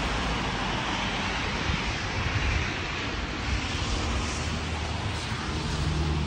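Steady rain falling on pavement: an even hiss, with wind rumbling on the microphone.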